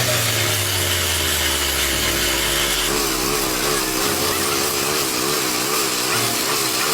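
A power tool running steadily on rail steel, a continuous grinding or cutting noise with a wavering hum, as in work on a rail weld.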